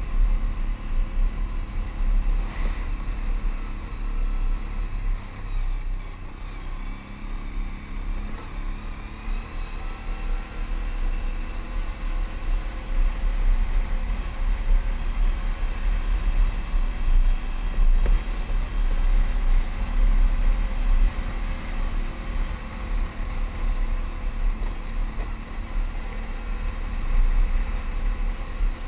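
Can-Am Outlander ATV engine running at trail-riding speed, its pitch rising and falling a little with the throttle, over a constant low rumble of wind on the microphone.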